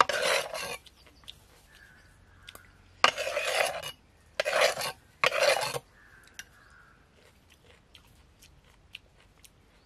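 Steel tumbler scooping crushed ice out of a clay pot: four short rasping scrapes of ice against metal and clay, with light clinks in between.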